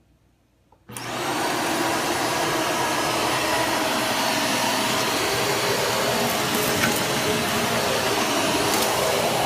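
BISSELL Zing bagless canister vacuum switched on about a second in, its motor spinning up with a brief rising whine and then running steadily.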